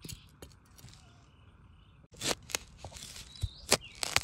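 Long knife blade chopping into soil around a young bamboo shoot to dig it out: about six sharp strikes in the second half, after a quieter first two seconds.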